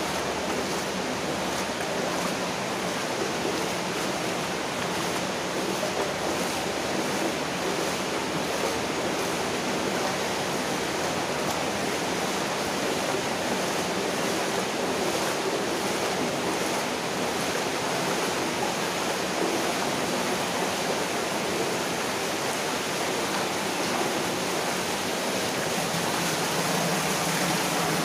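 Steady rush of water flowing through a brick mine drainage culvert, an even, unbroken noise at a constant level.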